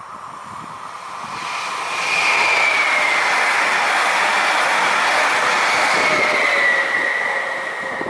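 Electric regional multiple-unit train passing close at speed. A rush of wheels on rails grows louder over the first two seconds and holds, with a high whine that slides slightly lower in pitch as the train goes by.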